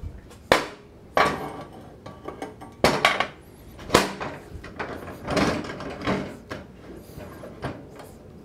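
Metal clanks and knocks as the table of a 1954 Shopsmith Mark V is handled and fitted onto the machine: four sharp impacts in the first four seconds, then scraping and lighter knocks as it is worked into place.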